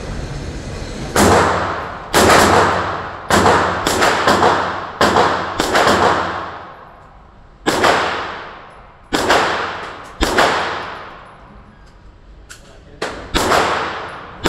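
AR-9 pistol in 9mm, fitted with a muzzle brake, firing about a dozen single shots at an uneven pace. Each shot is a sharp crack with a long echo off the walls of an indoor range.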